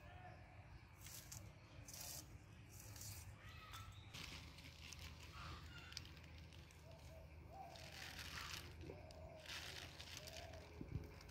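Faint, intermittent rustles and snips of fresh vegetables and spinach leaves being handled and cut by hand, with a few faint bird chirps in the background.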